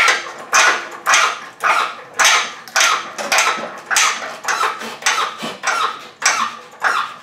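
Hand-pumped hydraulic engine hoist being jacked up, a short sharp sound with each stroke of the pump handle at about two strokes a second, as it lifts the engine out of the car.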